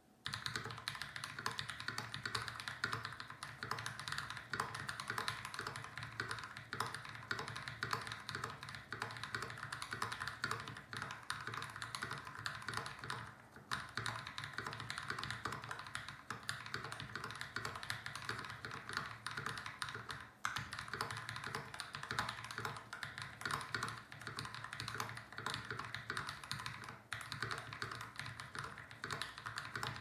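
Steady fast typing on a RAMA M60-A mechanical keyboard with Massdrop x Invyr Holy Panda tactile switches, lubed with Krytox 205g0 and sprung with SPRiT MX Supreme 68S springs: a dense stream of key clacks with three brief pauses. The lube makes the clacks a bit quieter and more dampened than unlubed Holy Pandas.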